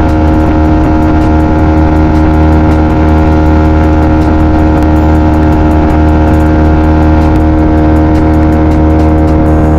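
Boat engine running loudly at a steady speed, holding one even pitch.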